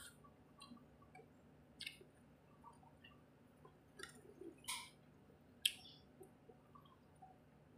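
Quiet eating sounds of a meal taken by hand: chewing and fingers working rice on a ceramic plate, heard as a few short smacks and clicks, the sharpest about three-quarters of the way through. A faint steady electric-fan hum runs underneath.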